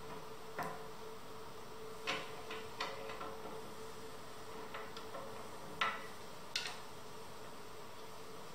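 Scattered sharp metal clicks and taps, about six in all, from a bolt with its washer and a hex key being handled and fitted into a wooden chair frame, over a faint steady hum. The loudest click comes a little before the end.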